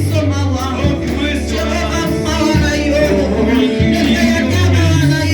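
Church worship music: singing over a band with a steady bass line.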